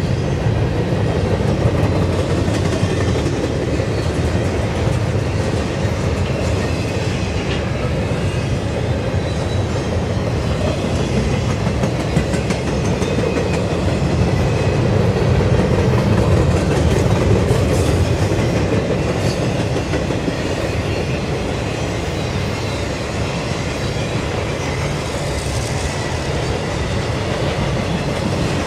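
Double-stack intermodal freight cars of a Union Pacific train rolling past close by: a steady rumble and clatter of steel wheels on the rails. The train is coasting downgrade, so no locomotive engine is heard.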